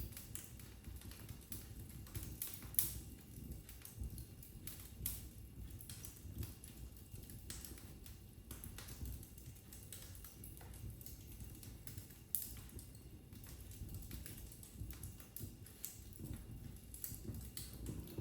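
Wood fire crackling in a fireplace: scattered sharp pops and snaps over a low, soft rumble of the flames, with a louder pop about three seconds in and another around twelve seconds.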